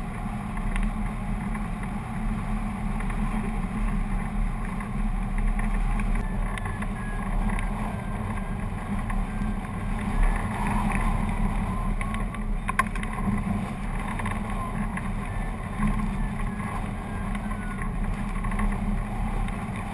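Wind rushing over a microphone mounted on a hang glider in flight, a steady low buffeting rumble.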